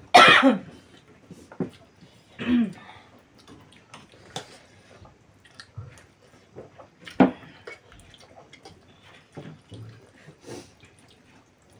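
Close-up eating sounds of instant noodles being slurped and chewed, with a loud slurp or sip right at the start. Sharp clicks of forks and glasses on plates and the table are scattered through.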